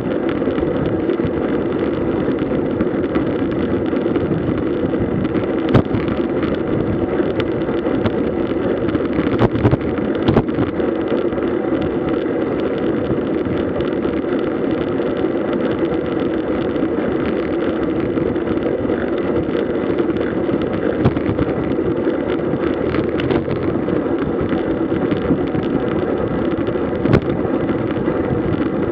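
Steady rush of wind and road noise recorded from a road bike riding at speed, with a few sharp knocks along the way.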